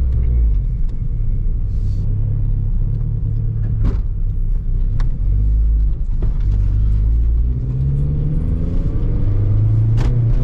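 Turbocharged Acura RSX's four-cylinder engine pulling the car along, heard from inside the cabin, on a test drive of a freshly replaced clutch. The engine note rises in pitch as it accelerates near the end, with two short, sharp clicks, one midway and one near the end.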